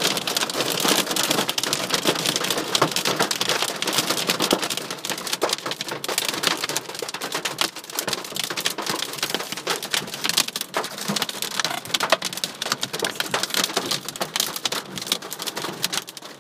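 Hailstones pounding a car's windscreen and body, a dense, unbroken clatter of hard impacts. The hail is heavy enough to threaten to smash the windscreen.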